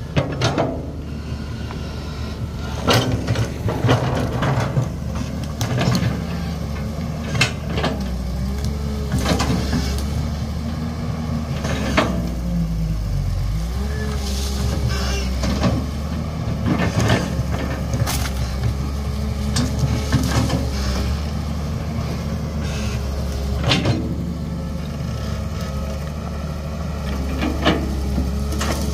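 Tracked excavator's diesel engine running steadily under load as it digs, with repeated clanks and scrapes of the steel bucket biting into dirt and stones. A wavering whine comes and goes several times over the engine.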